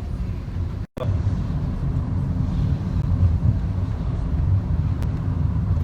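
Car cabin noise while driving: a steady low rumble of engine and tyres on the road. The sound cuts out completely for a split second about a second in.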